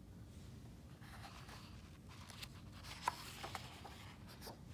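Page of a hardcover picture book being turned by hand: faint paper rustling with a few light clicks and taps in the second half.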